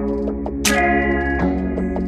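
Instrumental background music: sustained pitched notes struck in a steady sequence, with a bright high shimmer about two-thirds of a second in.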